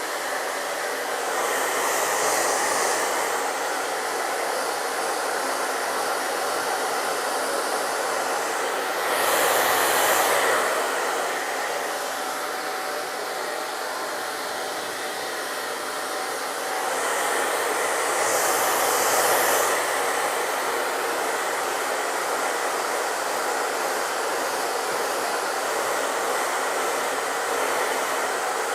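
Small handheld hair dryer blowing steadily while drying a wet hen's feathers. Its rush swells louder three times: near the start, about ten seconds in, and again near eighteen seconds.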